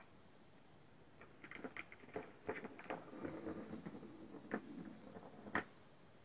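Catit Senses 2.0 Super Circuit plastic ball track toy being batted by a kitten: the ball rolls and rattles through the tube. A run of light clicks and taps starts about a second in, with a steady rolling rumble in the middle and one sharper knock near the end.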